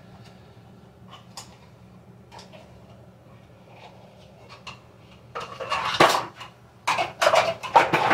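Kitchen utensils clattering in a drawer as someone rummages through them. Light scattered clicks come first, then a run of louder, quick clatters from about five seconds in.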